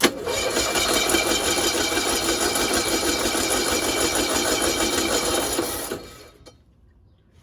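Cushman Truckster engine turning over with a fast, steady mechanical clatter for about six seconds, then winding down and stopping: a start attempt on a sitting engine, primed with a shot of WD-40, that does not keep running.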